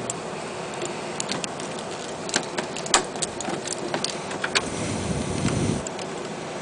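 Irregular sharp clicks and light knocks of parts being handled and fitted while a Macintosh Performa 5260 is put back together, the loudest click about three seconds in, with a short rustle of handling near the end.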